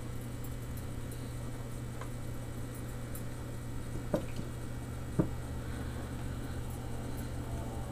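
Silicone pastry brush dabbing melted butter onto soft raw dough, soft squishing over a steady low hum. Two light clicks about a second apart come a little past the middle.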